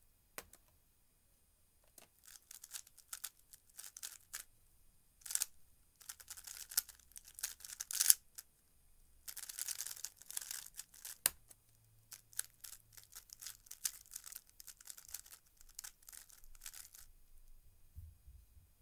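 A 3x3 speedcube being turned fast by hand during a timed ZZ-method solve: quick runs of plastic clicking and clattering layer turns, broken by short pauses. About eleven seconds in, a single sharp tap as the timer is stopped on the laptop keyboard, followed by more bursts of turning.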